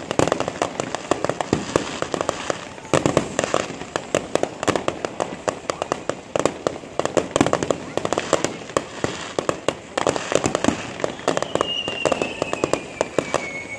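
Aerial fireworks display: dense, rapid crackling and popping from bursting shells, with sudden louder bursts about three and ten seconds in. Near the end a high whistle slides slowly down in pitch.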